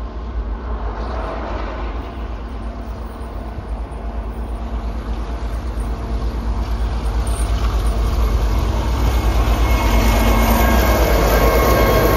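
DB 'Ludmilla' heavy diesel locomotive approaching at the head of a freight train. Its engine throbs steadily and grows louder as it nears, and a high whine joins in near the end.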